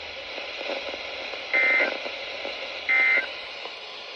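Two short bursts of Emergency Alert System (SAME) end-of-message data tones, the digital warbling buzz that closes a NOAA Weather Radio warning, about a second and a half apart. They sound over steady radio hiss.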